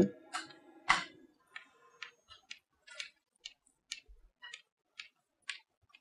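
Chalk tapping and scraping on a blackboard as small circles are drawn one after another: a string of short, faint, irregular taps, about two a second, the loudest about a second in.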